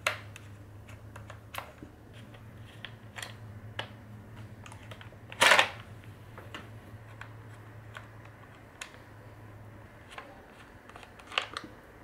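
Scattered small clicks and taps of a screwdriver and hard plastic parts as the outer plastic guards are unscrewed and pulled off a Dyson vacuum's turbine floor head. The loudest click comes about five and a half seconds in, over a low steady hum.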